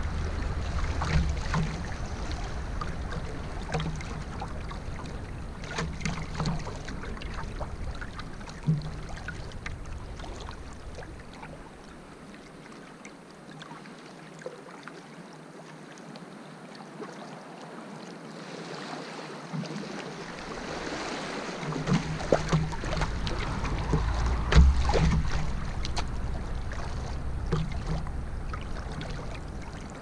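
Canoe moving down a river: a steady wash of moving water with scattered knocks and splashes at the hull, the loudest cluster about three-quarters of the way through. A low rumble underneath drops away for several seconds in the middle.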